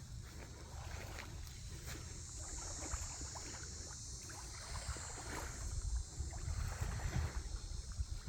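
Water lapping and splashing softly against a dock, with a steady high insect buzz that swells in the middle, and breeze rumbling on the microphone.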